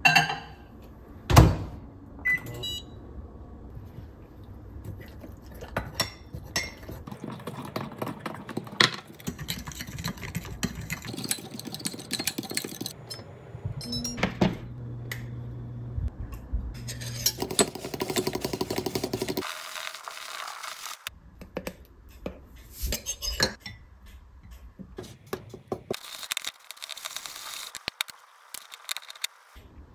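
A run of kitchen work sounds. A loud bang about a second and a half in, as the microwave door is shut, is followed by short electronic beeps and a brief steady low hum. Repeated clinks and knocks of dishes and utensils fill the rest.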